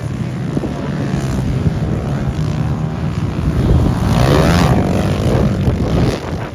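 Pit bike engines racing on a motocross track. About four seconds in, one bike's engine gets louder and its pitch sweeps up and down as it revs past close by.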